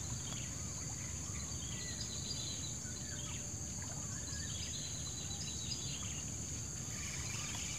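Outdoor waterside ambience: a steady high-pitched insect drone, with scattered short bird chirps and a low rumble underneath.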